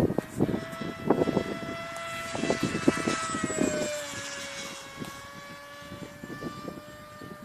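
Electric RC flying wing in flight: a steady high whine from its 2200kV brushless motor and small 5x5 propeller on 4S. The pitch drops slightly about four seconds in. Gusts of wind buffet the microphone, heaviest in the first half.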